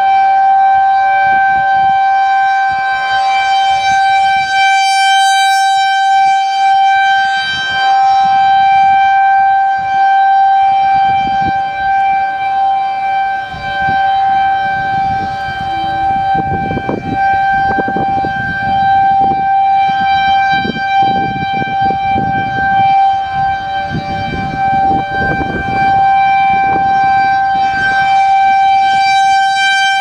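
Federal Signal 2001 tornado siren sounding a loud, steady, ear-piercing single tone during its weekly test, its higher overtones swelling about five seconds in and again near the end. Gusts of wind rumble on the microphone in the second half.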